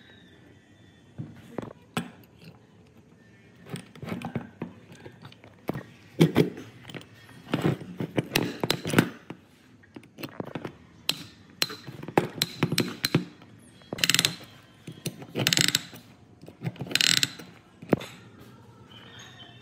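Metal clicks, knocks and short scraping rasps of hand tools working on the parts of an old demolition hammer, irregular and coming more often in the second half.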